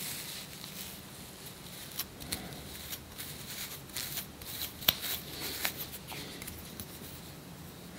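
Scratching at the scalp to lift off dandruff flakes: a run of short scratches and clicks, the loudest about five seconds in, over a faint hiss.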